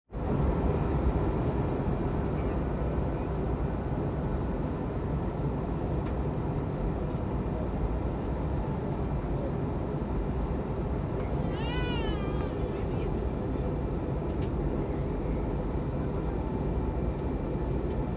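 Steady low rumbling background noise throughout, with one short animal call, a quick run of rising-and-falling notes, about twelve seconds in.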